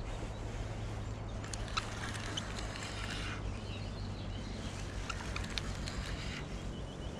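Outdoor lakeside ambience with occasional short bird chirps over a steady low hum, and two stretches of rustling from handling a spinning rod and reel.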